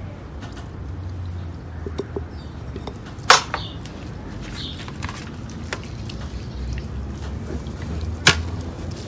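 Hands handling and rubbing a whole raw chicken wet with ginger-salt juice, with soft wet squishing and small clicks over a low steady hum. Two sharp knocks stand out, one a little over three seconds in and one near the end.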